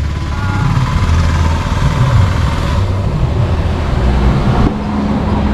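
Road traffic: a low engine rumble of passing vehicles, changing abruptly about four and a half seconds in to a steadier hum.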